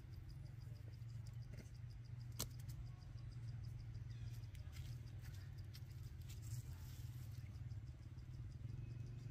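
Outdoor forest ambience: a steady low hum, with an insect's high chirp pulsing evenly several times a second above it, and a single sharp click about two and a half seconds in.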